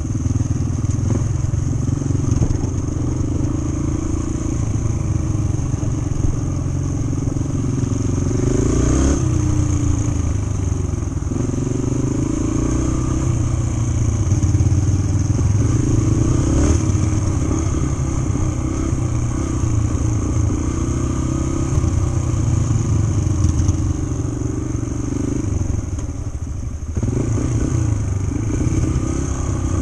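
Yamaha TT-R125 dirt bike's air-cooled single-cylinder four-stroke engine running under way at part throttle, its pitch rising and falling as the throttle is worked. The revs drop briefly a little before the end, then pick up again.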